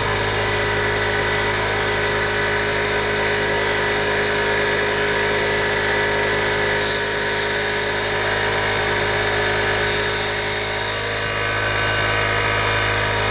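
Small Campbell Hausfeld air compressor's electric motor running steadily with a constant hum, with two brief hisses about seven and ten seconds in.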